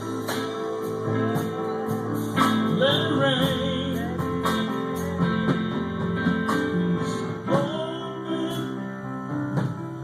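Live gospel music: sustained chords with a steady beat of drum and cymbal hits, and a man's voice singing a few phrases over it.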